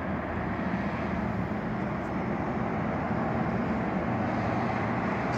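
Steady outdoor background noise with a low rumble, like road traffic running without a break.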